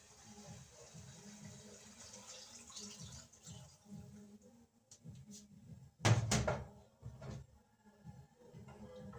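Kitchen work sounds: a steady hiss for the first few seconds with soft low knocks, then a loud, brief clatter of cookware about six seconds in.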